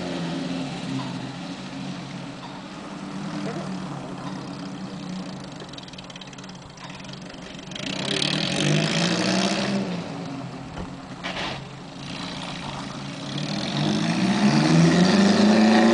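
1930 MG M-Type Double Twelve's small overhead-cam four-cylinder engine accelerating on the move, its note climbing in pitch about eight seconds in and again near the end, getting louder as the car approaches.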